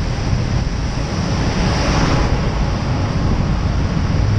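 Wind buffeting the microphone of a camera on a moving bicycle, over the steady hiss of tyres on a wet road and traffic alongside. The hiss swells briefly about halfway through.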